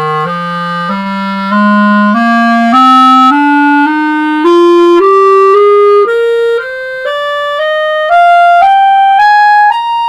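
Serio Claro clarinet, with a composite upper joint, a grenadilla lower joint and red and brown colour rings, played as a slow rising scale from its lowest notes upward, about two notes a second.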